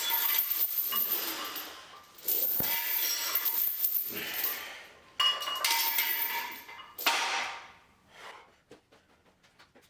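Metal gym weights clanking and ringing against each other in about four bursts, dying away to a few light clicks near the end.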